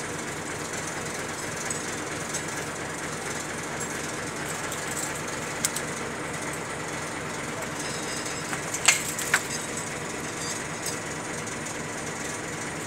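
Engine of work machinery running steadily with a fast, even low beat, and a few sharp knocks, the loudest a pair about nine seconds in.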